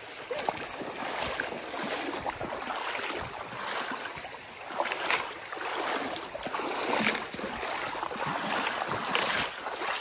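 Footsteps wading across a shallow, rocky creek: shoes splashing through flowing water in repeated steps, with the stream running throughout.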